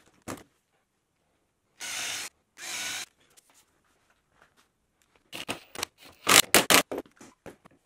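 Drill running a Festool Centrotec countersink bit into plywood in a quick series of short, loud cutting bursts in the second half. Before it, about two seconds in, come two brief scraping sounds.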